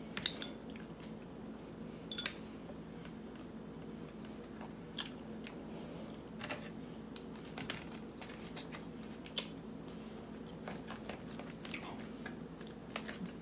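A person chewing pork chop, with scattered short clicks from mouth and food over a steady low room hum.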